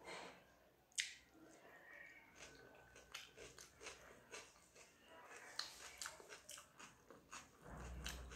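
Quiet close-up eating sounds of a person eating rice and dalma by hand: soft chewing, wet mouth clicks and the squish of fingers mixing rice on a plate. A sharp click about a second in.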